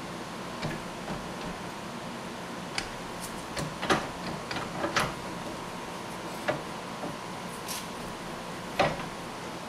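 Scattered metallic clicks and knocks as a car's front strut and coil spring are handled and seated in a floor-standing Branick spring compressor, its jaws fitted to the spring coils. About eight separate knocks, the loudest about four, five and nine seconds in.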